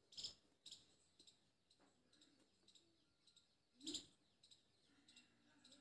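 Near silence, with a few faint, brief scratches and ticks of a pen drawing on paper. The two clearest come about a quarter second in and about four seconds in.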